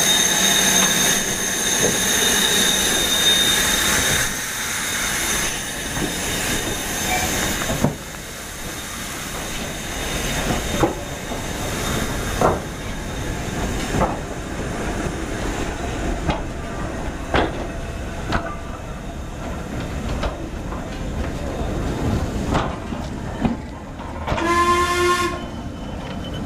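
Steam locomotive No. 8478 hissing loudly with steam. After about eight seconds the hiss dies down to wheels clicking over rail joints every second or two as the train rolls past. A brief pitched whistle-like hoot sounds near the end.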